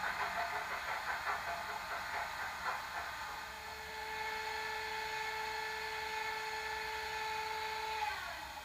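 Sound decoder of a Bachmann OO gauge Class 25 diesel model, played through the model's small speaker. It rattles for the first few seconds, then settles into a steady whine from about three seconds in. The whine falls in pitch and drops away about eight seconds in.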